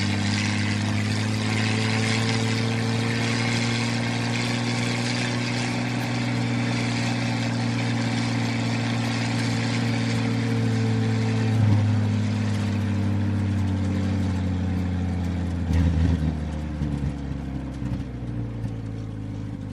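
Old Jeep engine running steadily while driving, with a brief knock about twelve seconds in. Near the end the engine note drops lower, turns uneven and grows quieter.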